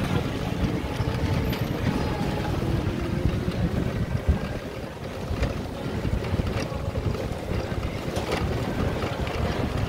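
Wind buffeting the microphone as a low, uneven rumble, over the noise of street traffic on a city lane.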